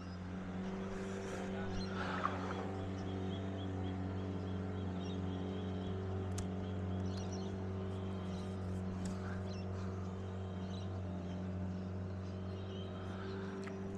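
A steady low motor hum with even overtones, and a few faint ticks over it.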